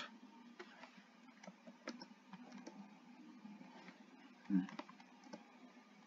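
Faint, scattered clicks of a computer keyboard and mouse as lines of code are copied and pasted. A short low thump about four and a half seconds in.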